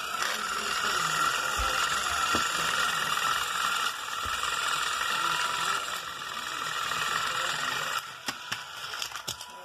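Motorized toy Thomas train whirring steadily as its small battery motor and gears drive it along plastic track. About eight seconds in the whirr drops away and a few sharp plastic clatters follow as the train comes off the track.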